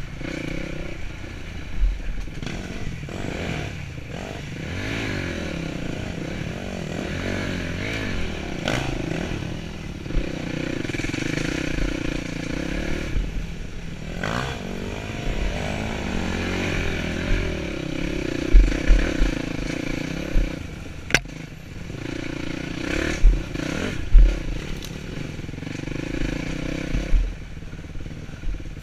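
Yamaha dirt bike engine running and revving up and down as it is ridden over rough trail, with clatter and several sharp knocks from the bike hitting bumps, the loudest in the second half.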